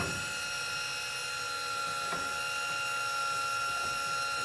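Electric fishing reel's motor whining steadily as it winds in line, a continuous high whine of several held tones.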